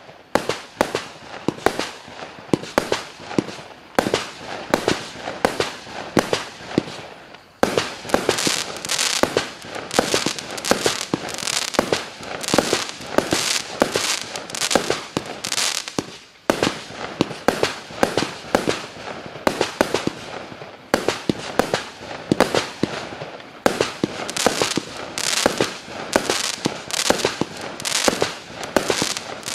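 A 200-shot, 0.8-inch consumer fireworks battery (cake) firing in rapid succession, several shots and bursts a second. The shots come in waves that ease off briefly a few times and then pick up again.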